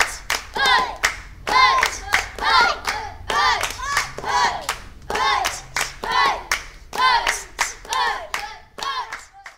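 Hands clapping a steady rhythm, about two claps a second, with high voices singing along; it cuts off suddenly at the end.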